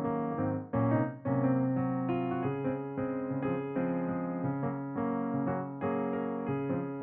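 Background music: a piano or electric-piano melody played in a steady flow of notes.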